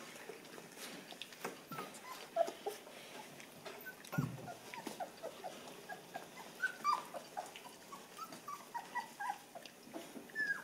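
Nursing newborn puppies squeaking and whimpering, many short high squeaks that slide in pitch. A soft thump about four seconds in.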